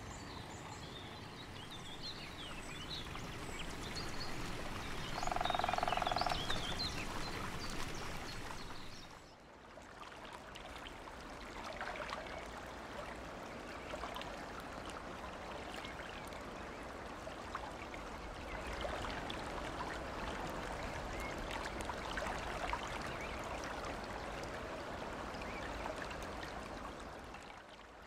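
Meramec River water trickling and babbling steadily over shallow gravel, with small birds chirping during the first several seconds and a single held pitched call lasting over a second about five seconds in. The sound drops out briefly near ten seconds, then the water carries on.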